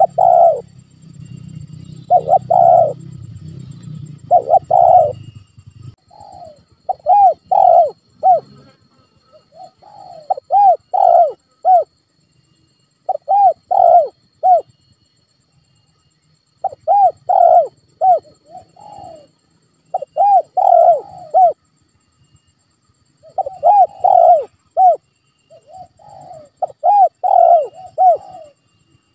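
Spotted dove cooing: about ten phrases of two to four arched coos each, with short pauses between phrases. This is the call used as a lure for spotted doves.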